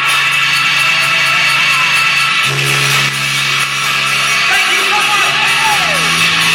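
Loud live electronic rock played by a band in a club. Held synthesizer bass notes change about two and a half seconds in and again near the end, over a fast steady hi-hat beat, with a voice gliding in pitch in the second half.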